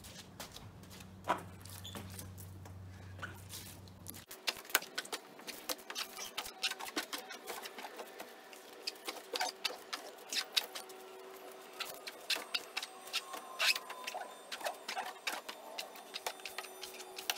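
Handheld squeegee blade dragged across a wet car body and glass, squeaking and clicking in quick irregular strokes. A low steady hum stops about four seconds in.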